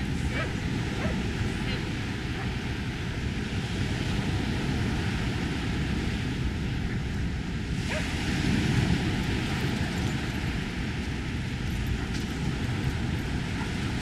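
Small ocean waves breaking and washing up a sandy shore, under a steady low wind rumble on the microphone; the wash swells louder for a moment about eight to nine seconds in.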